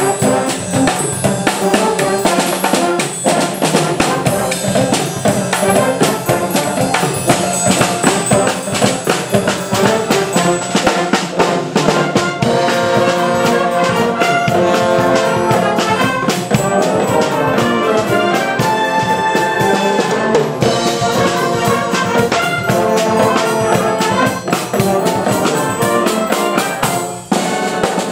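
Wind band playing a mambo live, with trumpets and trombones to the fore over a drum kit and low brass; the music dips briefly near the end.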